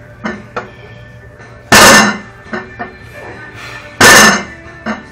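A one-handed vertical bar deadlift: the weight-plate-loaded bar clanks down onto a plate on the floor twice, once per rep, each hit loud and ringing briefly, with lighter metal clinks between the reps.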